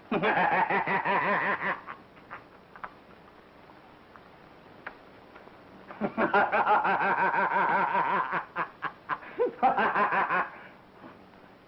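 A man laughing in quick, pulsing 'ha-ha-ha' bouts. There is a short bout at the start, a longer one from about six seconds in, and a last short burst near the end.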